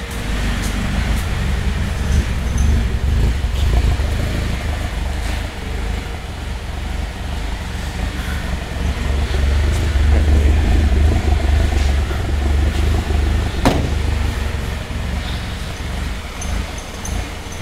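Mitsubishi Lancer Evolution X's turbocharged 2.0-litre inline-four idling, heard at the dual tailpipes through a test pipe and cat-back exhaust: a steady low exhaust note from an engine just started and still settling toward an even idle. One sharp click about fourteen seconds in.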